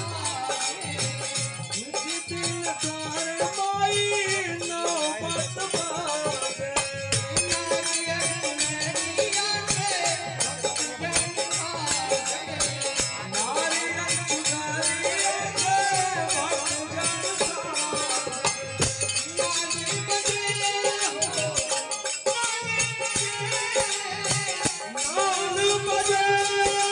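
Hindu devotional folk song (devi geet) with harmonium, dholak drum and jangling hand percussion keeping a fast, even rhythm under a sung melody.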